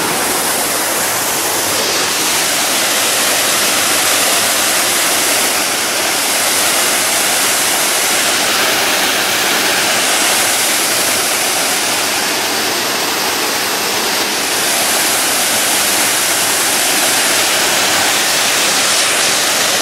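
Partly iced-over waterfall pouring: a loud, steady rush of falling water.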